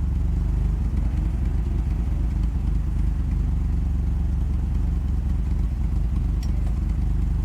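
1996 Mitsubishi Eclipse GST's turbocharged 2.0-litre inline-four idling steadily.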